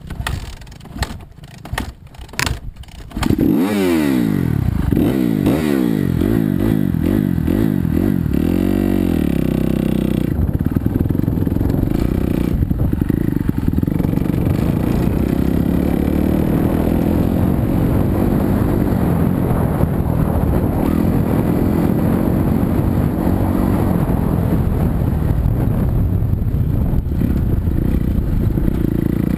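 2016 Kawasaki KX250F four-stroke single-cylinder dirt bike engine, recorded onboard. Scattered clicks and knocks give way, about three seconds in, to hard acceleration, the revs rising and falling repeatedly through the gears. It then runs steadily at speed.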